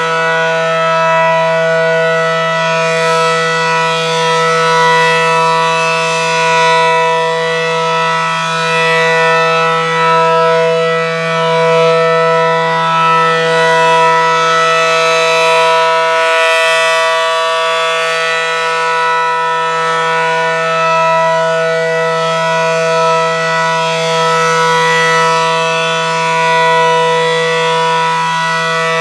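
ACA Allertor outdoor warning siren sounding a steady alert. It is a super low, unwavering pitch, and its loudness swells and fades gently.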